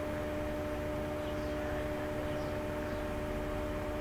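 Steady electrical hum of several held tones over a low rumble and faint hiss: the background noise of the recording, with no other sound.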